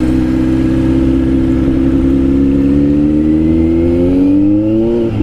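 Motorcycle engine running at low speed, its pitch climbing steadily over the last couple of seconds as it accelerates, then dropping suddenly near the end.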